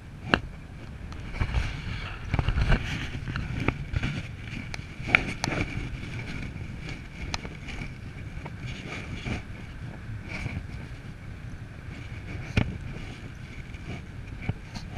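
Wind from the paraglider's forward flight rushing and buffeting over the camera microphone in a steady rumble, with a few sharp knocks now and then.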